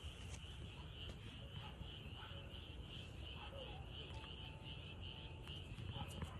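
Chirping insect chorus: a steady, evenly pulsing high chirp of several beats a second, over a low rumble.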